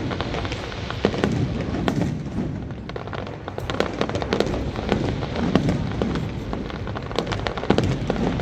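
Aerial fireworks display going off: sharp bangs at irregular intervals, roughly one a second, over a continuous din.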